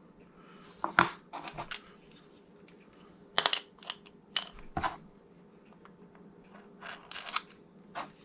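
Scattered light metal clinks and knocks as the grinding disc and flange nut are handled and fitted onto a 4-inch Makita angle grinder's spindle.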